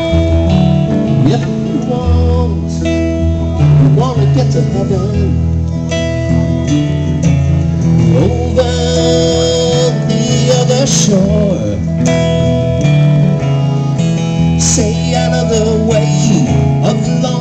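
Live blues band music: an electric guitar plays lead lines over steady guitar-and-bass accompaniment.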